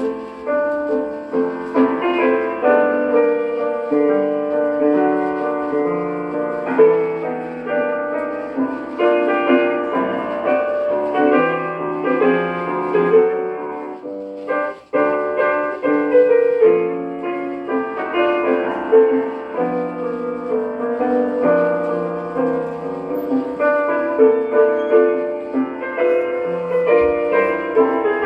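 Old-time piano-led dance music played back from a home lathe-cut 33 rpm recording on a flexible Lexan disc, dull in the highs, with the disc's background noise under it. The music drops out briefly about halfway through.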